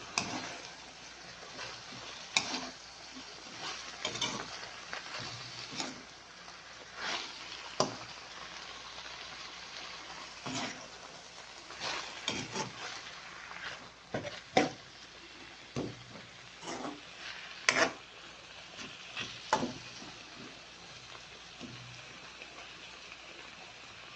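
Pechay and beef liver sautéing in a pan: a steady sizzle, with a utensil stirring and knocking or scraping against the pan every second or two.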